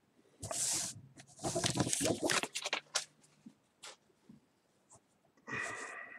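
Trading cards and plastic card holders being handled on a tabletop, rustling and sliding in bursts: briefly about half a second in, a longer stretch around two seconds, and again near the end, with a few light clicks between.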